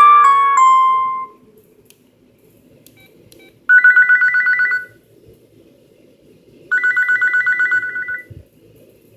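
LG KG270 ringtones played through an LG CU500 mobile phone's speaker. A melodic ringtone fades out in the first second, then come two short bursts of a fast two-tone electronic trill, each about a second long, in the manner of an old telephone ring.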